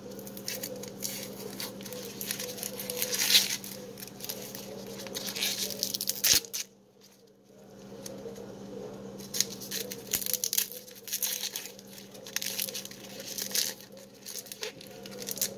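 Dry, papery yellow onion skin crackling and tearing as it is peeled off by gloved hands, in irregular rustling strokes with a brief pause about halfway through.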